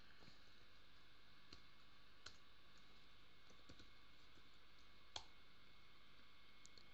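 Faint, scattered clicks of a computer mouse and keyboard over near-silent room tone. The sharpest click comes about five seconds in.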